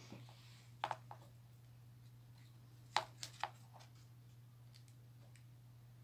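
A few faint clicks and taps from small craft pieces being handled, in two short clusters about one second and three seconds in, over a steady low hum.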